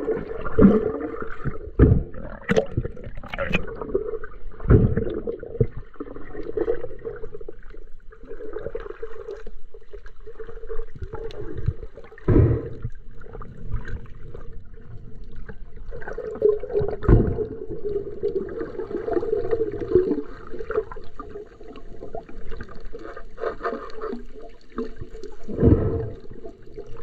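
Muffled underwater sound picked up by a submerged action camera: water gurgling and sloshing over a steady low hum, with several loud irregular thumps.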